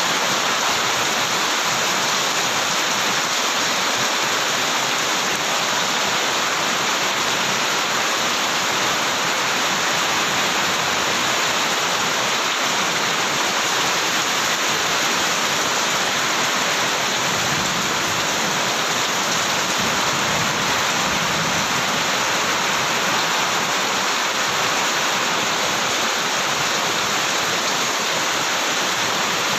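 Heavy rain pouring down steadily, a dense unbroken hiss with no let-up.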